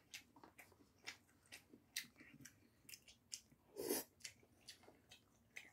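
Faint eating sounds: scattered light clicks of chopsticks in a paper cup of instant udon noodles and chewing, with a short, louder slurp of noodles about four seconds in.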